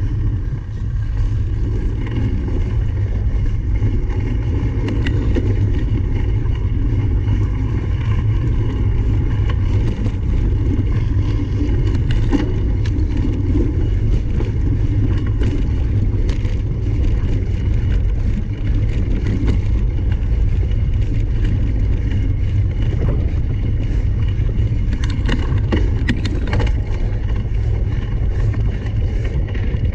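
Steady low rumble of wind and tyre noise from a cyclocross bike being ridden at race pace, with scattered clicks and knocks as it goes over rough ground.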